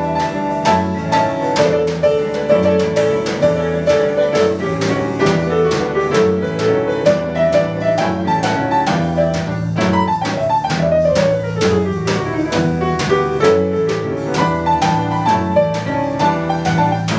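Live jazz combo: piano playing a melody over a low bass line and a drum kit keeping time on the cymbals. About ten seconds in, a quick falling run of notes sweeps down.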